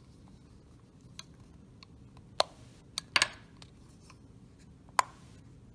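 Hard plastic case of a laptop power adapter clicking and snapping as a pry tool is worked into its glued seam, breaking the glue loose. Light ticks, then a few sharp snaps, the loudest a quick double snap with a short scrape just past the middle and another near the end.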